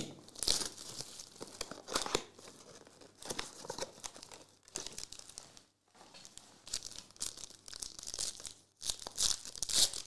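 Foil trading-card pack (Crown Royale basketball) crinkling in the hands and being torn open, in irregular bursts with short pauses.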